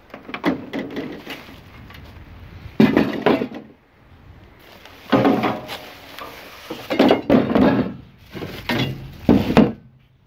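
Plastic sheeting and bubble wrap being pulled and crumpled around packed machine parts, in about five loud rustling bursts with knocks against the plywood crate.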